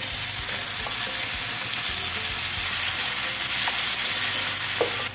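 Hot coconut oil sizzling steadily as cooked, mashed potato is added to a tadka of mustard seeds, onions and curry leaves, while a wooden spatula stirs it around the nonstick pan. A light knock of the spatula comes near the end.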